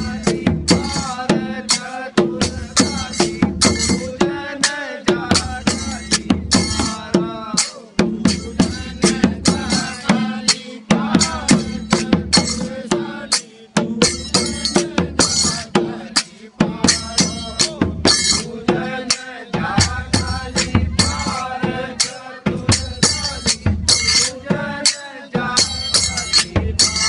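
Folk dance music with a steady drum beat and a singing voice, played loud.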